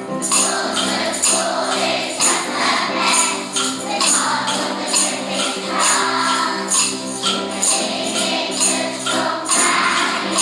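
Music: a song with sung voices over sustained notes, and a tambourine that comes in just after the start and jingles on a steady beat.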